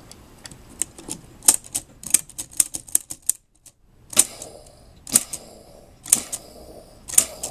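Hard plastic clicks and clacks of a Transformers Voyager Class Shockwave toy being worked by hand. A quick run of clicks comes first, then after a brief gap, single sharp clacks about once a second.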